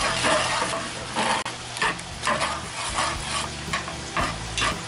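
Metal spatula stirring and scraping a thickening milk gravy in a cast-iron Dutch oven, in repeated strokes about two a second.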